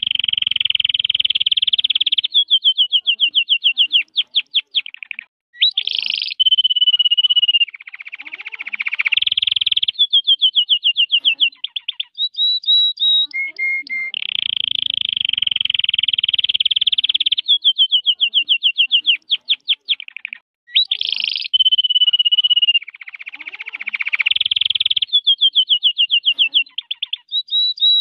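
Red-factor canary singing a long song of fast trills and rolling phrases broken by clear whistled notes. The same sequence of phrases is heard twice.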